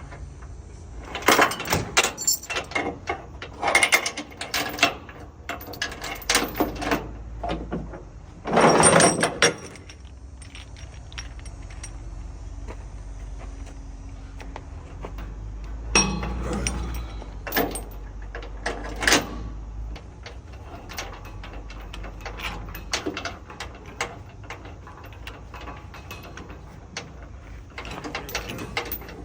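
Steel load-securement chain clanking and a ratchet binder clicking as the chain is hooked up and tensioned on a flatbed, with several louder metal clanks among the clicks.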